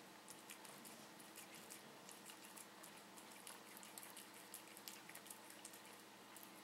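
Siamese cat chewing a meadow vole: faint, irregular wet clicks and smacks from its mouth working on the prey.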